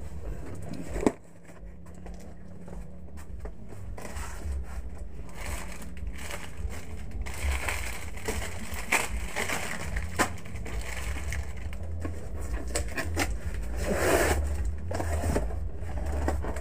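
Plastic packs of coffee sachets being handled and stacked, crinkling and rustling with scattered light knocks, and one sharp knock about a second in. A steady low hum runs underneath.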